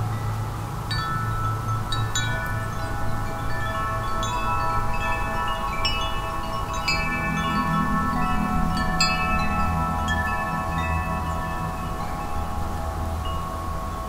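Wind chimes ringing: many metal tones struck at irregular moments, in small flurries, each ringing on and overlapping the next, over a steady low rush of wind.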